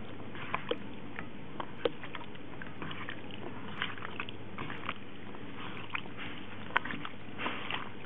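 Raw chicken wing pieces being squeezed and turned by hand in a fish sauce marinade in a stainless steel bowl: irregular wet squishes with a few sharp clicks.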